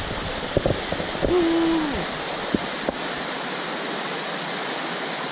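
Steavenson Falls waterfall: a steady, even rush of falling water that takes over after about three seconds. Before that, a few knocks and a short falling tone sound over fainter water noise.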